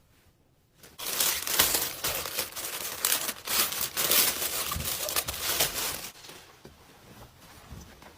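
Plastic parcel packaging being handled and opened, crinkling and rustling from about a second in. It fades to faint rustling after about six seconds.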